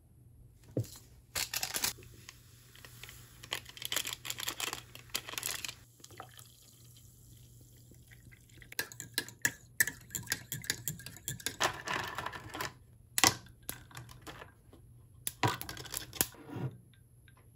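Water poured into a glass mug onto Emergen-C fizzy drink powder, after a stretch of rustling and small clicks from handling the packet. Near the end come a few sharp clinks as ice cubes drop into the glass.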